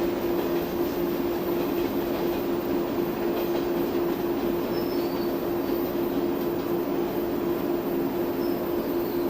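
A train running with a steady noise and a steady, unchanging tone.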